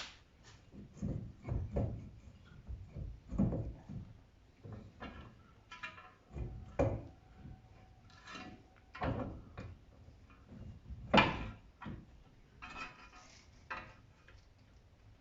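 Irregular clanks and knocks of metal parts and hand tools being handled while fitting a wheel hub bearing assembly, with the sharpest knock about eleven seconds in.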